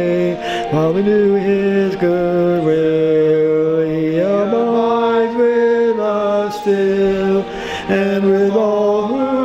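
Hymn singing, slow, with long held notes that step up and down the tune.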